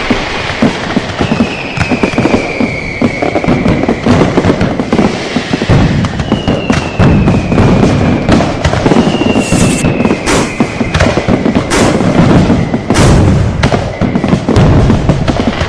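Dense, continuous barrage of exploding firecrackers and fireworks: rapid cracks mixed with deeper booms. Several whistles fall in pitch over a second or two each, about four times.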